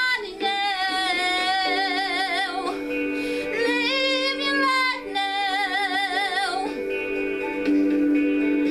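A woman singing a slow worship song solo with wide vibrato, two long held phrases, over a backing track of steady sustained chords. Her voice stops about seven seconds in, leaving the chords sounding alone.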